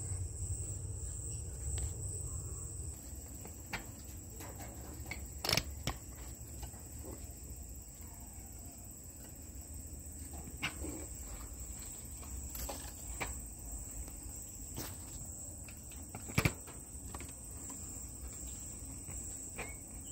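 A steady high-pitched tone with scattered sharp clicks over a low rumble; two louder clicks come about five and a half and sixteen and a half seconds in.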